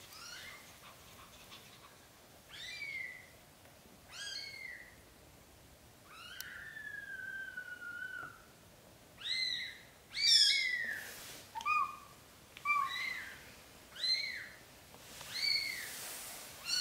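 Newborn British shorthair kittens squeaking: a string of short, high-pitched cries every second or so, with one longer drawn-out cry falling slowly in pitch about six seconds in and the loudest cries around ten seconds in.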